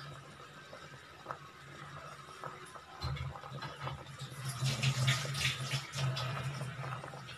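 Prawn curry boiling hard in an aluminium pot on a gas stove, bubbling and popping. It gets louder and more vigorous from about three seconds in.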